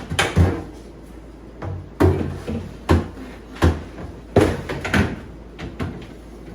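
Irregular knocks and clatters of things being handled while a refrigerator is cleaned out, about eight sharp hits in six seconds, like doors, shelves and containers being moved and set down.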